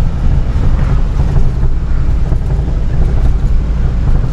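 Truck engine and tyre noise heard from inside the cab while driving: a steady low rumble.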